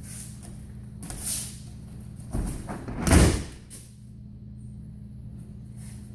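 Judo throw landing on tatami: a softer thump, then a loud slap as the thrown partner's body and arms hit the mat in a breakfall about three seconds in. A steady low hum sits behind it.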